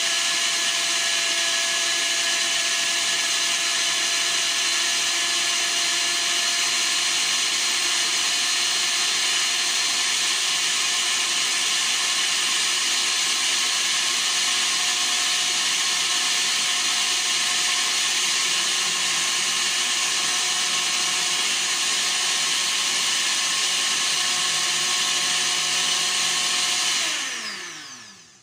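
Countertop blender running steadily, puréeing malunggay (moringa) leaves with egg, then its motor spinning down with a falling pitch near the end.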